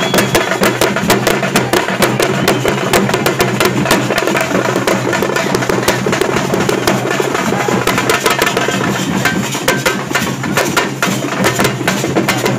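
Loud, fast drumming: dense rapid strokes with no pause, over a few steady low tones.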